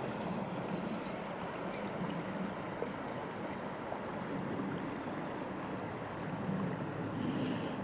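Fast, high river in spate rushing steadily, with faint high-pitched bird twittering in short runs of notes on top.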